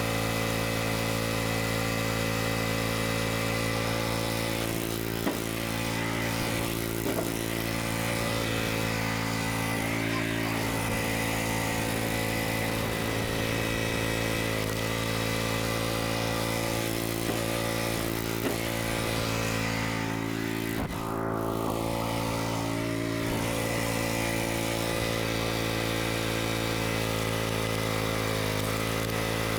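Small gasoline engine idling steadily, its pitch holding even without any revving, with a few light knocks over it.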